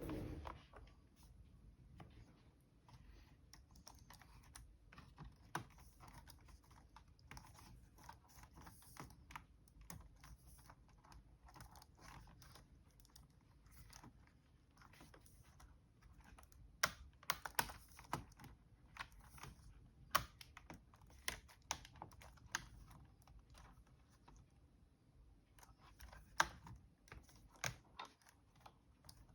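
Keys of a Dell Latitude E7440 laptop keyboard being pressed, faint irregular clicking in runs, busiest in the second half.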